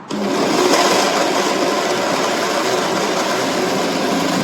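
Electric blender switched on and running steadily, grinding lemongrass, galangal, shallots, onion, garlic and bird's eye chillies with water into a spice paste. The motor starts abruptly just after the beginning and then holds an even pitch.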